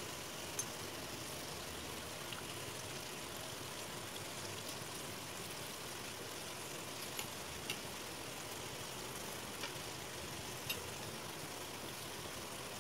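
Gujiya deep-frying in hot oil in a kadhai: a steady sizzle, with a handful of short sharp clicks scattered through it.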